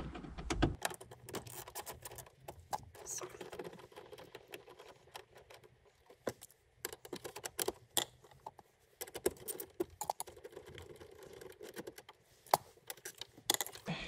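Irregular light clicks, rattles and knocks of plastic dashboard trim on a Toyota Prius being handled and unclipped by hand, with one sharper snap a little past two-thirds through.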